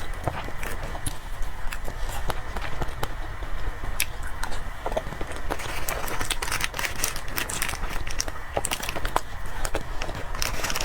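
Close-miked eating of cream cake: chewing with many small, irregular wet mouth clicks and smacks.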